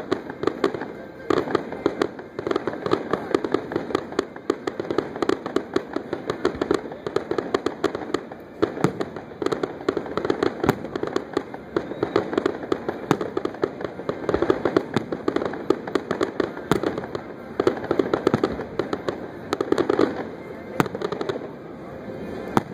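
Fireworks display: a dense, continuous run of sharp crackling pops, with louder bangs scattered among them.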